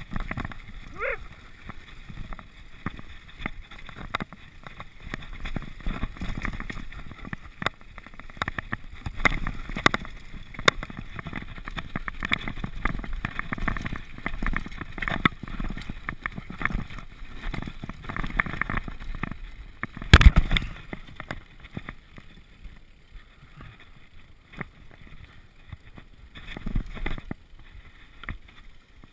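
Mountain bike rolling fast down a rough dirt trail: tyres over roots and rock, the bike rattling with many sharp knocks, and wind rushing on the microphone. A heavy thump about twenty seconds in is the loudest moment.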